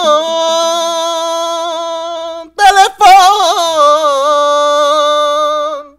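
A man singing unaccompanied: two long held notes, the first steady for about two and a half seconds, the second starting with a wavering vibrato and held until just before the end.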